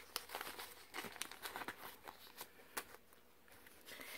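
Paper banknotes rustling and crinkling as they are handled and tucked into a cash-envelope wallet: a string of light, irregular crackles that thin out briefly near the end.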